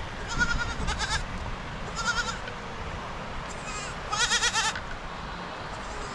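Goats bleating several times, each call short and quavering, the longest and loudest bleat about four seconds in.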